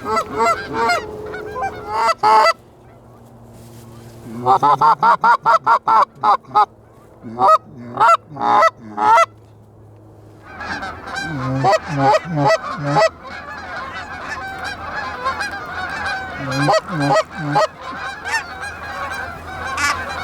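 Geese honking and cackling: short bursts of calls, a rapid run of honks about four seconds in, then from about ten seconds in many geese calling over one another without a break.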